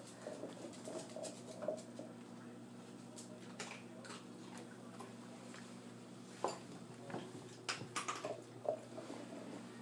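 A kitten scampering and batting a small plastic ball across a tile floor and a rug: light scattered taps and knocks, with a few louder knocks in the second half, over a low steady hum.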